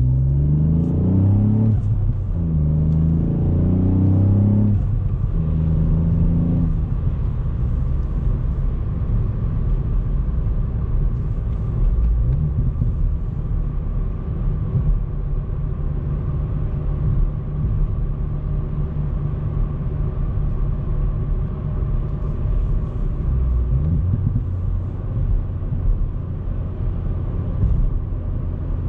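Ford Fiesta ST Mk8's turbocharged 1.5-litre three-cylinder engine accelerating up through two gears in the first five seconds, its pitch rising each time, then settling into a steady cruise with low road rumble. The engine note rises briefly again about 23 seconds in.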